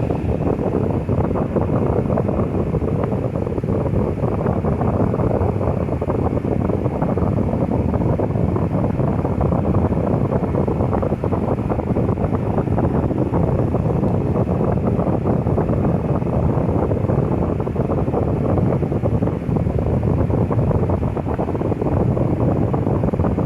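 Lasko 12-inch table fan head running on its high setting without oscillation: a steady rush of air.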